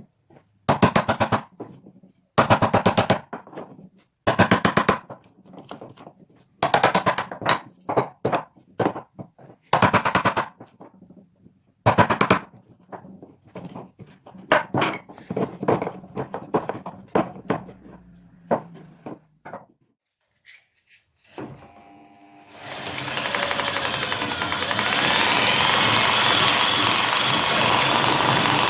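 A power tool working wood in short rattling bursts of about half a second to a second each, with pauses between, for about twenty seconds. After a brief pause, a machine starts running steadily about 22 seconds in.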